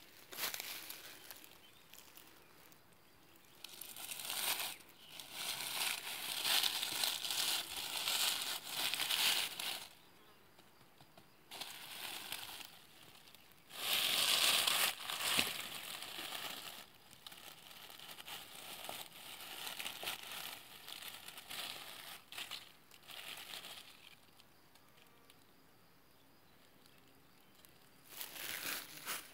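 Dry oak leaves and grass rustling and crackling as a hand clears the leaf litter around a porcini mushroom and pulls it from the ground. The rustling comes in several bursts, the loudest about halfway through.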